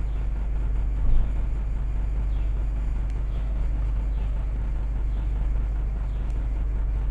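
Steady low rumble with a deep continuous hum underneath, and one slightly louder moment about a second in.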